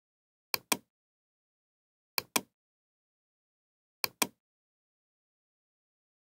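Computer mouse button clicking three times, each click heard as a quick press-and-release pair, with dead silence between.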